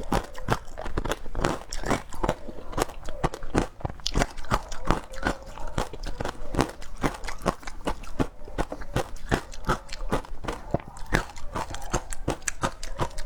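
Frozen passion fruit ice being bitten and crunched between the teeth: a fast run of sharp, crisp cracks, several a second.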